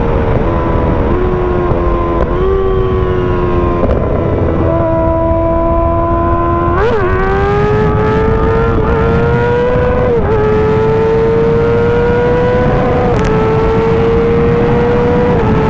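Kawasaki ZX-6R's 636 cc inline-four engine running at cruising speed. Its pitch holds steady, then steps up and down with throttle and gear changes, with a quick rev blip about seven seconds in.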